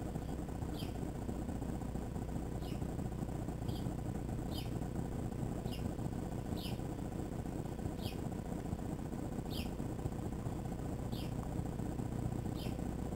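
A bird calling a single short, high chirp over and over, about once a second, over a steady low rumble.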